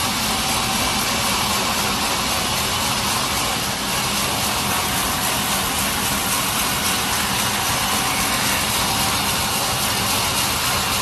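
Sawmill machinery running steadily: a dense, even mechanical noise with a faint steady hum, unbroken throughout.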